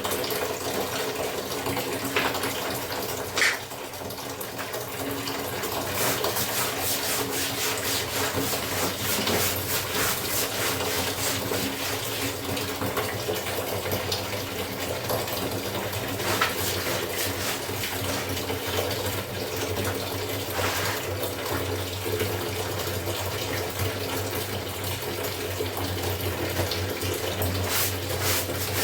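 Water running steadily from a tap, with a low hum beneath it and a sharp knock about three and a half seconds in.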